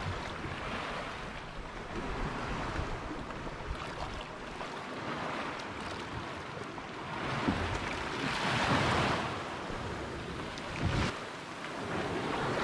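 Sea waves washing and splashing, with wind buffeting the microphone; the water noise swells up louder about three quarters of the way through.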